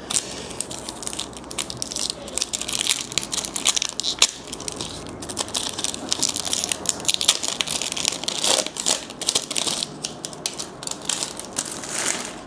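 Plastic wrapper of a basketball trading card pack crinkling and crackling in irregular bursts as it is handled and crumpled open.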